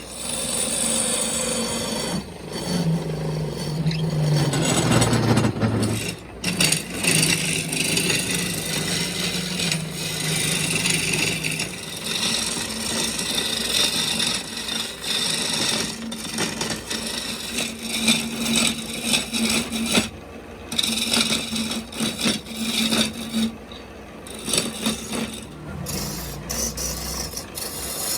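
A hand tool working wood, such as a rasp, file or sandpaper, making repeated uneven scraping and rubbing strokes.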